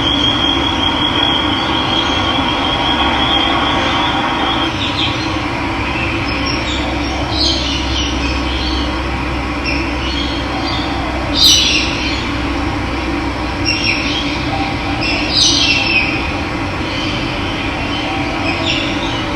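Steady rush of running water, with a bird's thin high trill over it for the first few seconds and short bird calls breaking in several times.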